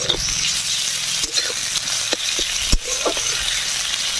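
Sliced onions and ginger-garlic paste sizzling steadily in hot mustard oil in a metal kadai, stirred with a flat metal spatula that scrapes the pan and knocks against it a few times, the loudest knock a little before the end.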